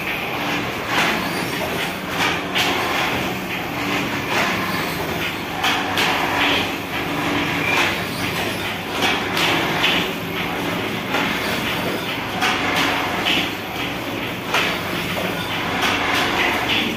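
Paper plate making machine running, its two pressing dies knocking down repeatedly, often in quick pairs every second or two, over a steady mechanical din.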